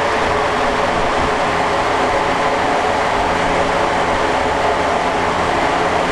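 1989 Porsche 911 Carrera's air-cooled 3.2-litre flat-six running loud and steady through a twin-exit exhaust on a chassis dyno, holding an even engine speed with no rise in pitch.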